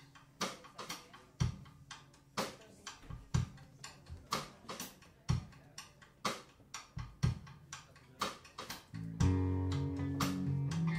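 Live band song intro: a drum kit keeps a steady beat with a strong kick-and-snare hit about once a second, then guitars and bass guitar come in together about nine seconds in and the music gets louder.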